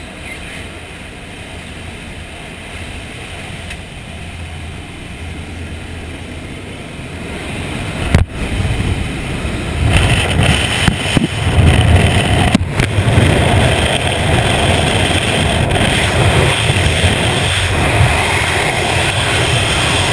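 Wind rushing over a helmet camera's microphone together with the drone of a small jump plane's engine. It gets much louder about halfway through, when the skydivers climb out into the slipstream and exit into freefall. There is a sharp knock about eight seconds in.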